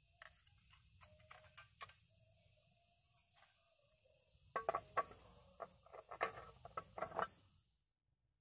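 Light metal clicks and knocks from hands working on a Stihl 070 chainsaw's bar and chain with the engine off, a few at first and then a quick run of rattling clicks in the second half. A steady high insect hum lies underneath and stops shortly before the end.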